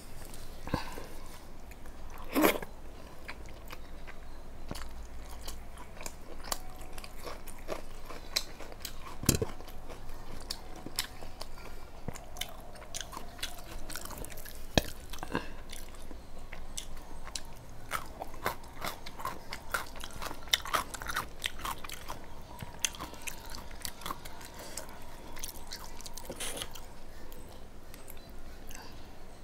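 A person eating: chewing and biting with many small wet mouth clicks and occasional crunches. One louder click comes about two and a half seconds in, and another about nine seconds in.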